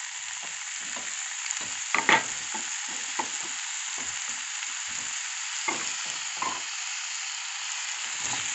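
Sliced bitter melon frying in hot oil in a nonstick pan, a steady sizzle with a few short knocks, the loudest about two seconds in.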